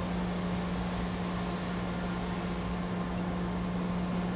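OD (cylindrical) grinder running without cutting: a steady hum with a low tone and an even hiss.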